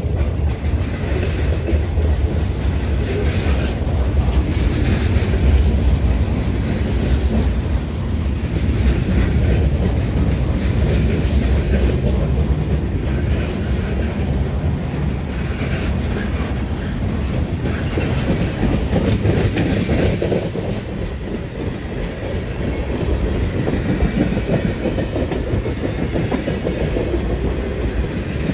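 Canadian National freight train rolling steadily past at close range, boxcars and then tank cars, with a constant low rumble and the wheels clicking over rail joints.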